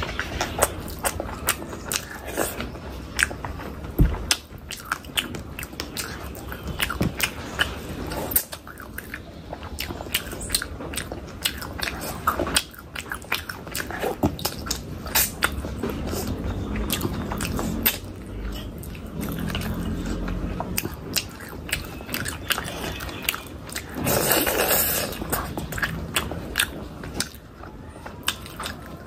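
A person biting and chewing food close to the microphone: many wet, irregular mouth clicks and crunches, with one louder, longer crunchy stretch late on.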